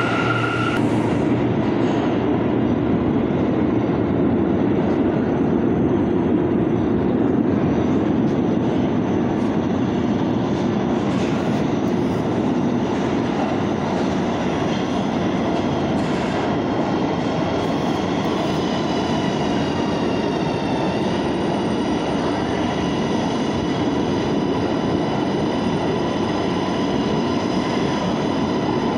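New York City subway train of R211 cars approaching and running in along the station platform, a steady rumble of steel wheels on rail. A high electric whine from the propulsion joins about halfway and dips briefly about two-thirds through.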